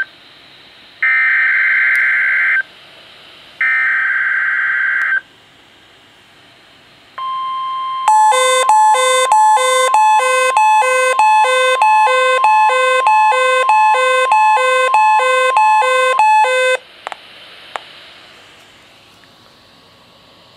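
NOAA Weather Radio Required Weekly Test alert signalling. Two loud buzzy digital header bursts of about a second and a half each come first. A steady alert tone follows, then about nine seconds of rapid alternating electronic alarm beeps, roughly two a second, over that tone, which cut off suddenly and leave only radio hiss.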